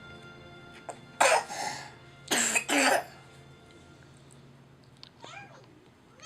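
A toddler coughing with a mean old cough: one cough about a second in, then two more close together.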